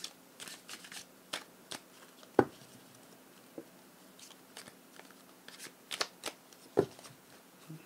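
Tarot cards being handled and drawn: scattered light card snaps and taps, with sharper taps about two and a half seconds in and again near the end.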